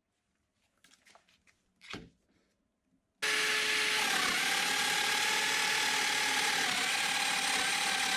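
A light wooden knock as an oak piece is set down, then about three seconds in a Festool Domino joiner switches on abruptly with its dust extractor and runs steadily while plunge-cutting a mortise in red oak, its motor pitch dipping slightly a couple of times.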